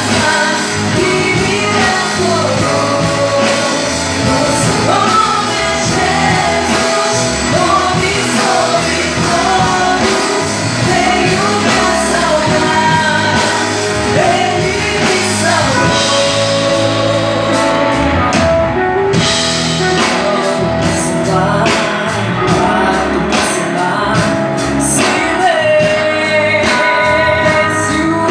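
A song sung with instrumental accompaniment, the voice carrying a wavering melody over a steady band backing with a beat that comes through more strongly in the second half.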